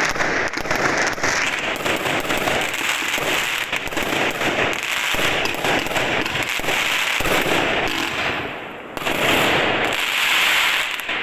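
Fireworks going off as a dense, continuous crackle of many bangs and pops, easing briefly then swelling louder again about nine seconds in.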